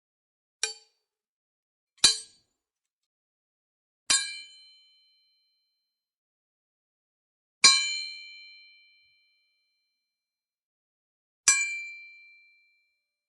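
Sword blades striking metal, five separate hits, each a sharp clang followed by a high ringing ping; the last three ring out longer, about a second each.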